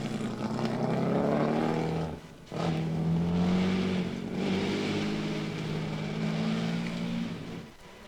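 Mercedes-Benz 3-litre supercharged V12 Grand Prix racing car running hard on track. Its engine note cuts briefly about two seconds in, picks up again and falls away near the end.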